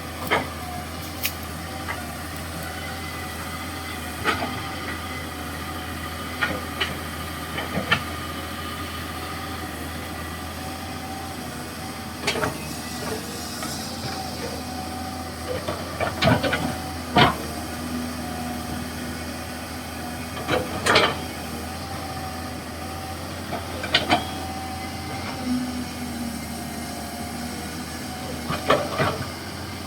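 Komatsu PC200-6 hydraulic excavator working, its engine a steady low hum under steady whining tones, with sharp clanks and knocks every few seconds. The loudest clanks come in a cluster a little past the middle.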